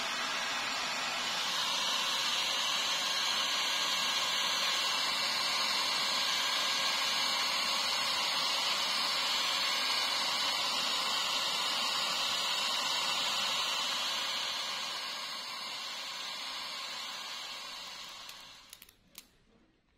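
Handheld hair dryer running with a steady, loud blowing hiss, easing off a little after about 14 seconds and cutting out near the end.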